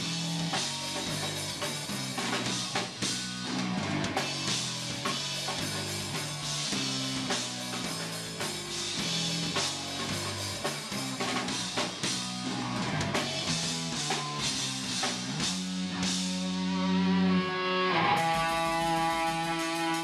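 A punk band playing live, with loud electric guitars and a fast-hit drum kit. Near the end the guitars hold a ringing chord.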